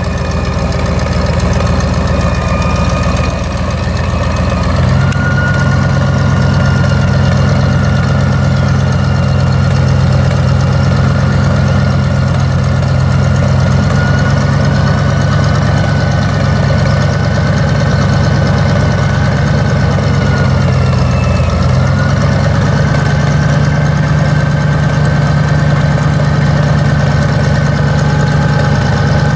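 Elwell-Parker ESI 300 fork truck's LP-fuelled engine running, stepping up in speed about five seconds in, dropping back briefly past the twenty-second mark, then picking up again, with a steady whine over the engine note.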